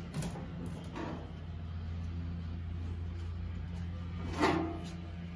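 Handling noise as a ratchet is picked up off a car's fender: a couple of light knocks, then a louder knock about four and a half seconds in, over a steady low hum.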